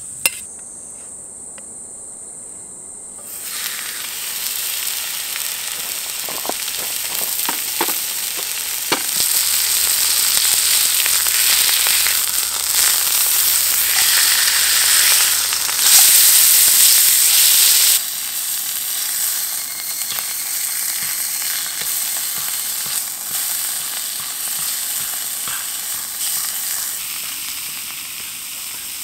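Food frying in a hot pan: a steady sizzle that starts a few seconds in, with a few sharp pops in the first third.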